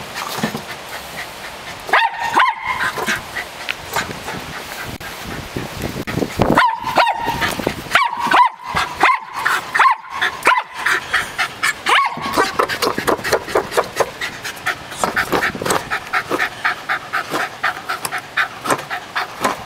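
Small terrier giving a series of short, sharp barks, then panting and snuffling rapidly, several quick breaths a second, for the last several seconds.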